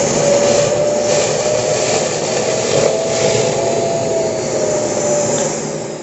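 Kärcher WD3 wet-and-dry vacuum cleaner running at full suction, drawing water up from a bucket: a loud steady rush with a steady whine. Near the end it is switched off and starts to wind down.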